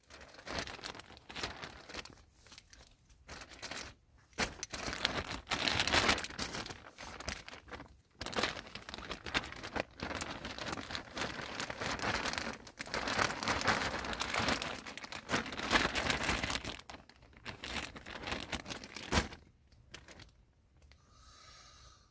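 Clear plastic bag crinkling and rustling as it is handled, in irregular spells with short pauses, dying away near the end.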